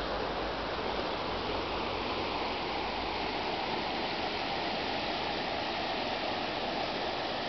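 Steady rush of the shallow Cerna River running over rocky riffles.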